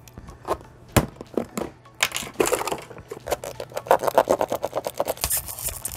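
Small plastic toy pouch being handled and worked open, crinkling in a quick run of clicks, with a single sharp click about a second in.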